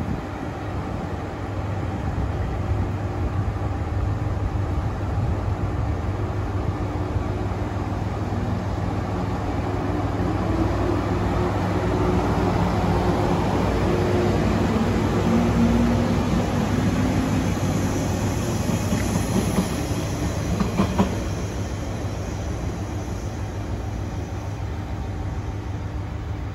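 Former JNR 455/413-series express-type electric train running on the adjacent track. The rumble of its wheels and motors builds to a peak about halfway and then fades, with rail-joint clatter and a few sharp clicks later on. A steady low hum runs underneath throughout.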